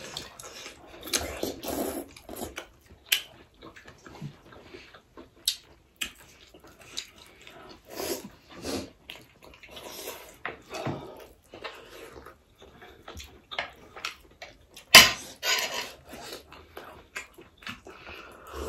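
Close-miked mukbang eating sounds: wet chewing and slurping of mutton momo dumplings and chicken soup, with spoons and forks clicking against the plates. There are many short irregular bursts, and one sharp loud click about 15 seconds in.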